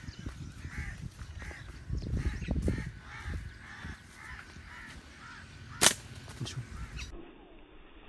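Birds calling over and over from the trees, harsh crow-like caws about two a second, over a low rumbling noise. A single sharp click just before six seconds in is the loudest sound.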